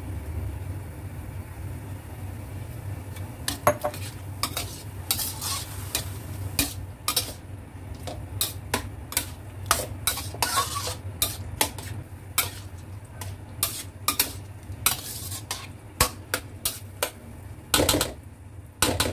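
A cooking utensil scraping and knocking against a pan as minced chicken is stirred together with tomato arrabbiata sauce, with a light sizzle and a steady low hum underneath. The stirring strokes start a few seconds in and come as a quick, irregular run of clicks and scrapes.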